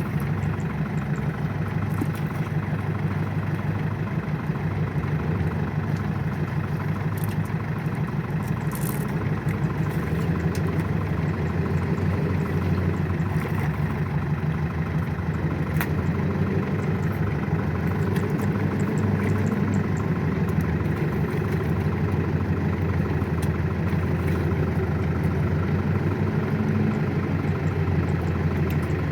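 A small farm tractor's engine running steadily, a low continuous drone with no break.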